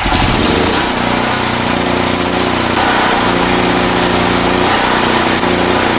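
Generac GP6500 generator's engine catching on a pull and running steadily at its governed speed. It is running with the air box off on partial hand choke, which the owner takes to make it run lean.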